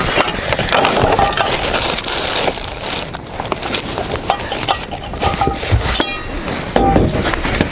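Handling of picnic things, a jar among them: a run of short clinks and knocks with rustling, and one sharper click about six seconds in.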